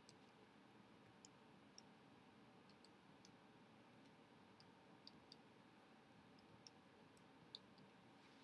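Near silence: faint room tone with small, irregular clicks scattered throughout.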